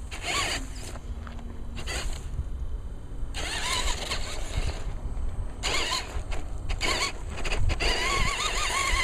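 Electric motor and gearbox of a scale RC rock crawler whining, the pitch wavering up and down as the throttle is worked, starting about a third of the way in and strongest near the end, with a few short crunching bursts along the way.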